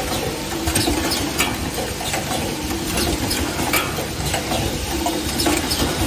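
Metal concealed cabinet hinges clinking and shuffling against each other in a plastic bag as a hand rummages through them, with irregular sharp clicks over the steady hum of a hinge assembly machine running.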